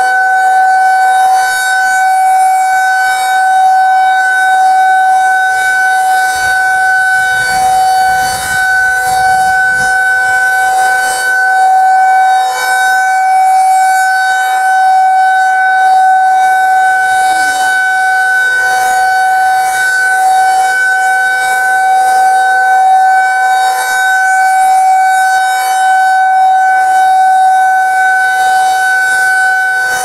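Rotating pole-mounted outdoor warning siren of a nuclear plant's emergency siren system sounding a loud, steady, unwavering tone during a test, swelling and fading slightly as the horn turns.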